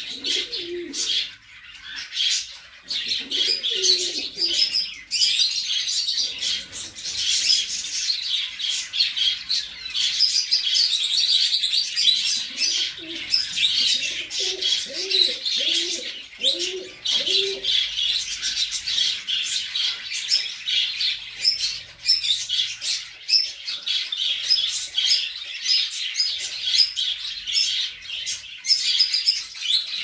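Fantail pigeons cooing in a few short runs of low coos, the longest a string of about half a dozen in the middle, over constant high-pitched chirping from many small birds.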